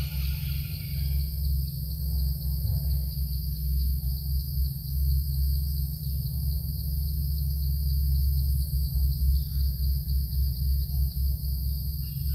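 Steady high-pitched insect chorus, with a continuous low rumble underneath that is louder than the insects.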